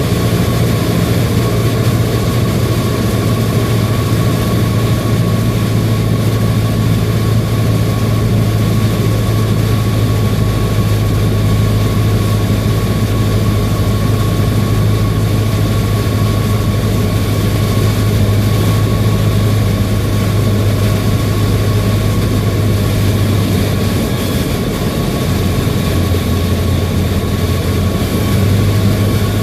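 Cessna 152's Lycoming O-235 four-cylinder engine and propeller running steadily on the landing approach, with a thin steady whine above the engine note. Near the end the engine note drops lower for a few seconds, then comes back up.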